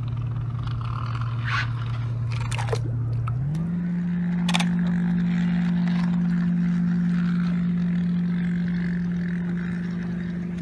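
Motorized toy train engine running along plastic track with a steady electric motor hum whose pitch rises smoothly about three and a half seconds in, as it speeds up, and then holds; a few light clicks from the wheels on the track.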